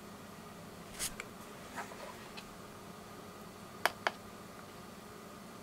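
Small clicks and taps of alligator-clip test leads and a handheld plastic component tester being handled, with two sharp clicks close together about four seconds in, over a faint steady hum.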